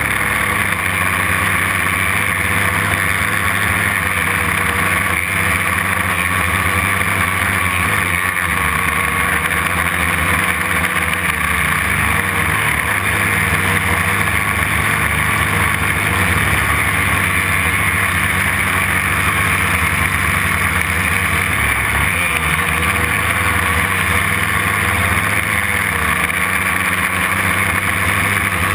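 Brushless motors and propellers of a homemade quadcopter running steadily in flight, heard from a camera mounted on the frame, with slight shifts in pitch as the throttle changes.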